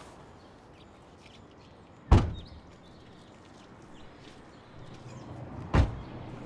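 A car door shut twice: two heavy thuds about three and a half seconds apart.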